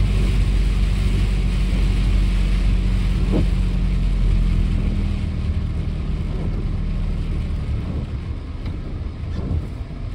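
Car cabin noise while driving in heavy rain: a steady low rumble of engine and tyres on the wet road with the hiss of rain and spray. It grows quieter about halfway through.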